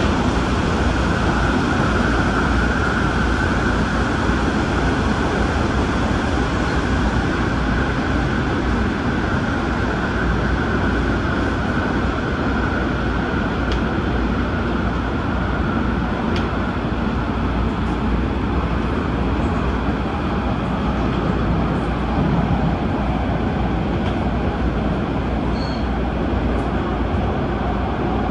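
Adtranz-CAF electric multiple unit running steadily on the MTR Tung Chung Line, a continuous rumble of wheels on rail. A high hum over it fades slowly through the first half.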